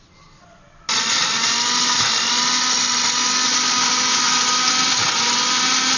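Electric mixer grinder (mixie) switching on about a second in and running at a steady speed with a steady whine. It is grinding chopped onions, tomatoes and dried red chillies in its tall juice jar into chutney.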